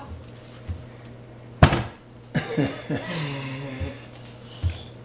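A sharp knock on a kitchen cabinet about a second and a half in, followed by a brief pitched sound that slides down in tone and then holds.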